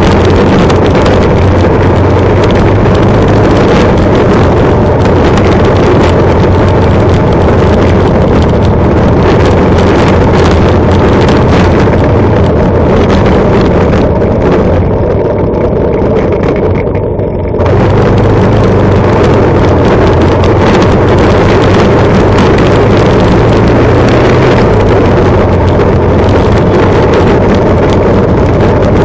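Motorcycle engine running at steady road speed under heavy wind buffeting on the microphone. A little past halfway the sound eases and dulls for about three seconds, then comes back as loud as before.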